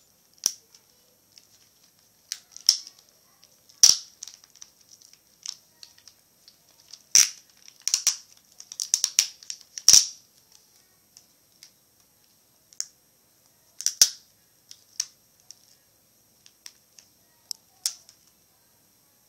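Irregular sharp clicks and knocks of plastic laptop parts and small tools being handled during disassembly, with a quick cluster of them around the middle.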